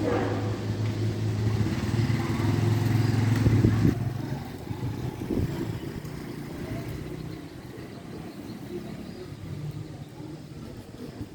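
A passing road vehicle's engine with a steady low hum, loudest for the first four seconds and then fading away.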